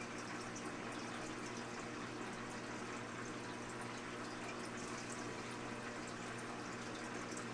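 Aquarium aeration and filter water: a steady bubbling and trickling with faint scattered drips and pops, over a low steady hum.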